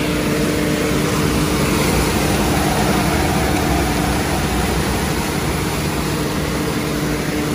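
Vactor vacuum truck running, its suction tube pulling water out of a storm-drain box: a loud, steady rush with a constant low hum from the truck's machinery.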